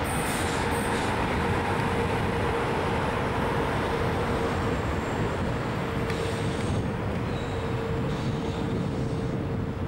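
Siemens Velaro D high-speed electric train (DB class 407 ICE 3) rolling through a curve past the camera: a steady rumble of wheels and running gear with a held humming tone from its traction equipment. Brief high wheel squeaks come near the start and again about six seconds in.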